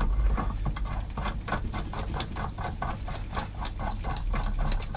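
Ratchet wrench clicking rapidly and evenly, about five clicks a second, as a pulley bolt is run in loosely on a cylinder head.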